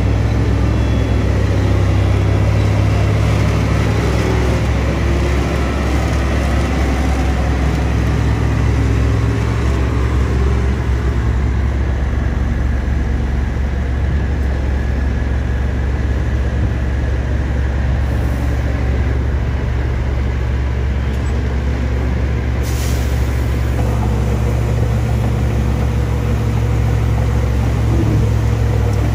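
Heavy diesel dump truck engines running with a steady deep drone. A brief air-brake hiss comes about three-quarters of the way through.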